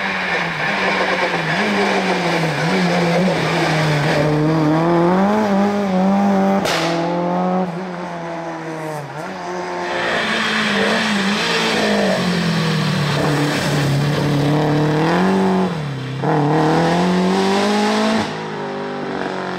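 Two rally cars driven hard on a stage, one after the other: first a white Opel Corsa, then, after a sharp break about a third of the way in, a yellow Opel Kadett GT/E. Their four-cylinder engines rev high, and the pitch climbs and drops again and again through gear changes and lifts.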